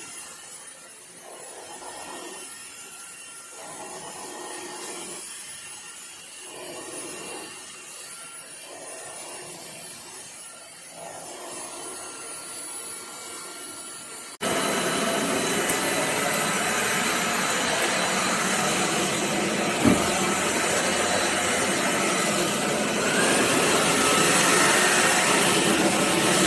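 Drepre K7 Pro cordless stick vacuum running, its sound swelling and fading about every one and a half to two seconds as it is pushed back and forth. About halfway through it cuts abruptly to a much louder, steady vacuum noise, with a single sharp knock a few seconds later.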